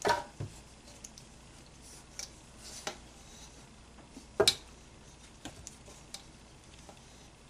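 A few light knocks and scrapes of a hand and plastic spatula working bread dough against a metal mixing bowl, the loudest knock about four and a half seconds in.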